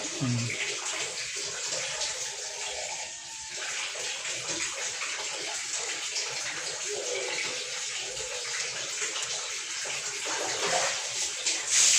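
Water running steadily and splashing, as from a tap onto parts being rinsed, growing louder near the end.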